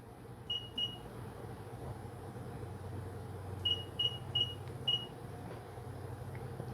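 Short, high keypad beeps from the ProtoTrak CNC mill's control as the program is edited: two quick beeps, then four more a few seconds later, over a low steady hum.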